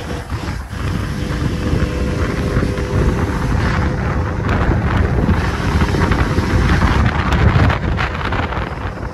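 Wind buffeting the microphone: a loud, steady low rumble that swells toward the end.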